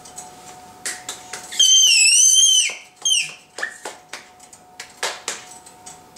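A baby squeals with delight: one high-pitched, wavering shriek of about a second, beginning a little after a second and a half in, then a second, shorter squeal. A few short knocks come and go around them.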